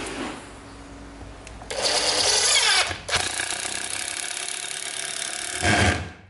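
Cordless impact driver driving a screw into a wood block in two runs, the first from about two seconds in and the second right after a brief pause, the hammer mechanism rattling fast and evenly under load. A louder, lower burst near the end, then it stops.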